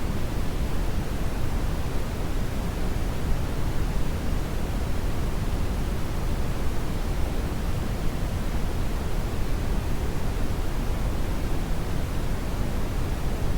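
Steady brown noise: a continuous deep rushing hiss, heaviest in the low end and rolling off toward the highs, with no changes or events.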